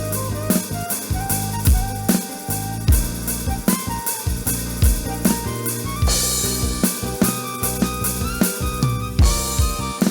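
Electronic drum kit sounds from a Yamaha DD-75 digital drum pad, bass drum, snare and rimshot hits in a steady beat over a pitched backing accompaniment of bass and melody, recorded straight from the unit's output. A cymbal crash rings out about six seconds in and again about nine seconds in.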